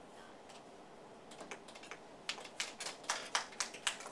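A series of sharp, irregular clicks or taps, faint at first and becoming louder and quicker about two seconds in, at roughly three to four a second.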